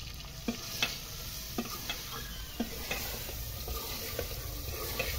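Metal spoon stirring and scraping in a steel pot, with irregular clinks against the pot, while chicken, onions and garlic sizzle steadily in hot oil at the browning (bhunai) stage.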